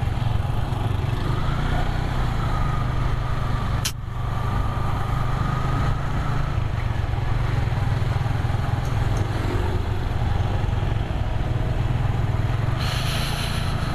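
Motorcycle engine running steadily while riding, under road and wind noise. There is a short click about four seconds in and a burst of hiss near the end.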